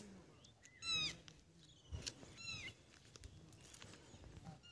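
Faint animal calls: two short, high calls, each falling in pitch, about a second and a half apart.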